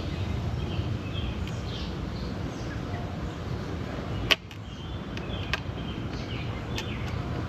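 Outdoor background: birds chirping over a steady low rumble, with one sharp click a little over four seconds in.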